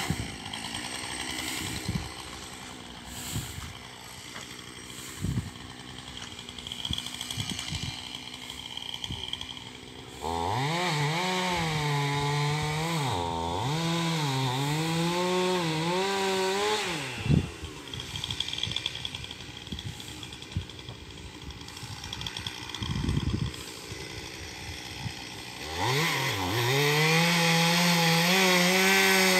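Chainsaw cutting into a tree trunk. It runs quietly at first with a few knocks. About ten seconds in it is throttled up for some seven seconds, the pitch dipping and recovering as the chain bogs in the wood, then drops back. Near the end it revs up again into the cut.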